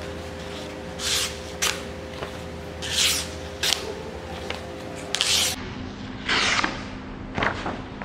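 Sheet of paper being sliced by a handmade folding knife with a blade ground from an old file: about seven short hissing swishes, one per cut, testing the edge's sharpness, over a steady low hum.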